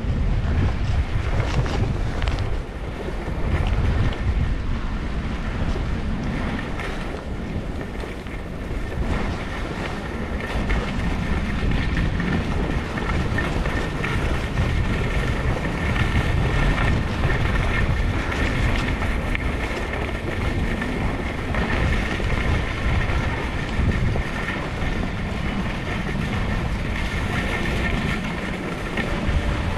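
Wind buffeting an action camera's microphone during a steady downhill ski run, with the skis hissing over packed snow underneath.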